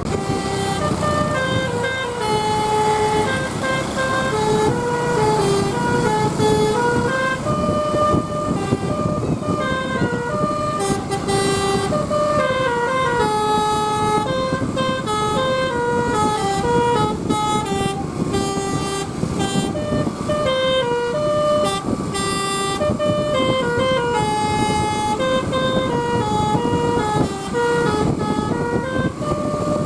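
Basuri telolet bus horn, a multi-tone air horn, playing a fast tune of short notes that step up and down without a break. The bus's engine and road noise rumble underneath.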